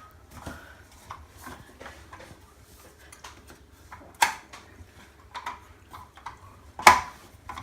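Light taps and knocks of a wooden blind valance being handled against its plastic clips, with two sharp clicks, about four seconds in and near the end, as the valance snaps onto the valance clips of the headrail.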